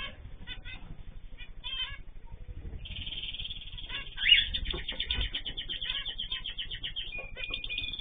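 Mixed aviary of cockatiels and small finches calling: many short chirps throughout, thickening into a dense chattering chorus about three seconds in, with one louder call a second later. A cockatiel's wings flutter briefly about five seconds in.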